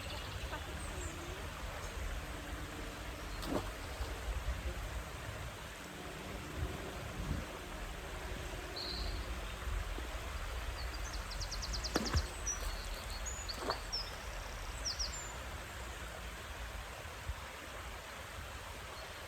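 Outdoor ambience: a steady low rumble with small birds chirping now and then through the middle, and a few sharp clicks or knocks.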